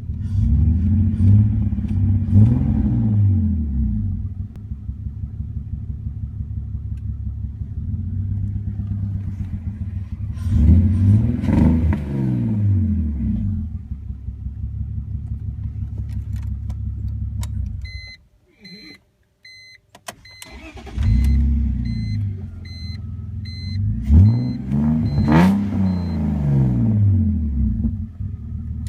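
2001 BMW 330ci's 3.0-litre inline-six with catless headers, running while rough and bogged down, revved twice. It is switched off about 18 seconds in, a repeating electronic warning chime sounds, and the engine is restarted and revved again; the owner says it runs fine right after a restart.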